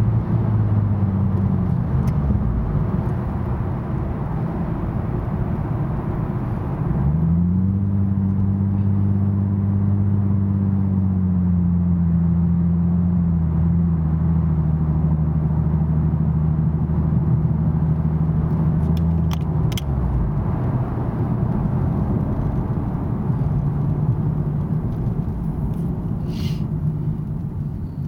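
Nissan 370Z's 3.7-litre V6 through a Fast Intentions exhaust with 18-inch carbon-fibre resonators and non-resonated high-flow cats, heard inside the cabin with the windows up. The car is cruising at around 2,000 rpm. A falling engine note gives way, about a quarter of the way in, to a quick rise and then a steady low exhaust tone. That tone drops away about two-thirds through as the car slows, leaving road rumble.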